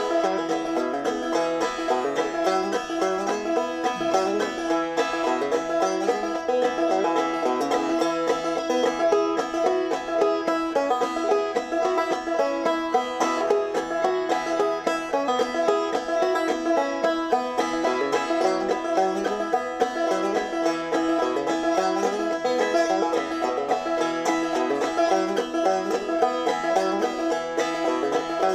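Instrumental music on plucked strings: a continuous stream of quick picked notes over a moving bass line, with a few notes held steady throughout.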